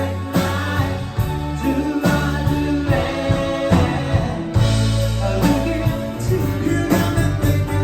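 Live rock band playing a song with a steady beat, strong bass and sustained keyboard or guitar notes.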